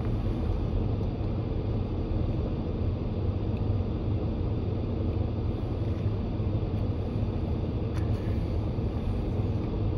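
Steady low rumble of a car's cabin, with one faint short click about eight seconds in.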